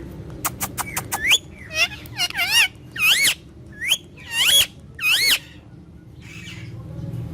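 Ringneck parrot making a quick series of sharp clicks, then a string of about seven short squeaky calls that slide up and down in pitch.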